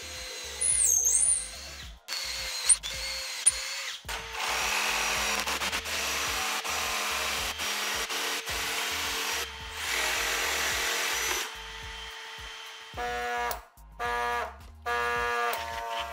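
A power tool running in several bursts of a few seconds each, with background music.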